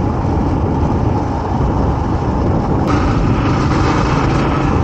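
Motorcycle riding at road speed: the engine runs steadily under a heavy rush of wind on the microphone, and the rush grows stronger about three seconds in.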